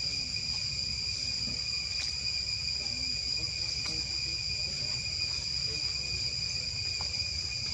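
Steady chorus of insects, a constant high-pitched buzz that does not change, over a low steady rumble.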